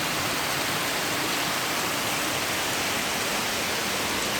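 Heavy wind-driven rain pouring steadily: an even, unbroken hiss.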